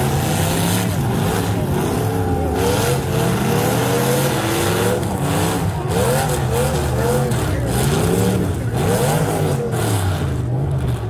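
Stock cars' engines in a demolition derby revving up and falling back again and again as they push against each other, with a few knocks of metal on metal.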